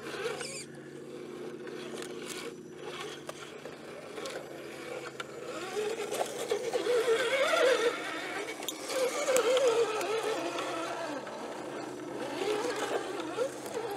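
Radio-controlled scale rock crawler's electric motor and gearbox whining, the pitch wavering up and down with the throttle as the truck creeps over rock ledges. A few light ticks and knocks of the tyres and chassis on the rock.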